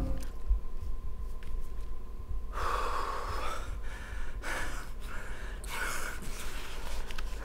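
A person gasping and breathing hard: a run of about five sharp, short breaths starting about two and a half seconds in.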